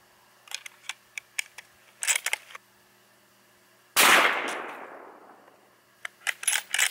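Clicks of a .223 rifle being handled and readied, then a single shot of a 55-grain full metal jacket round about four seconds in, the loudest sound here, ringing out and fading over about a second and a half, followed by more clicks of the rifle as it is lowered.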